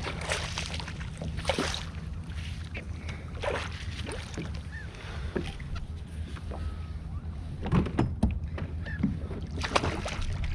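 Water splashing and sloshing against a kayak's hull in irregular bursts every second or two, over a steady low hum.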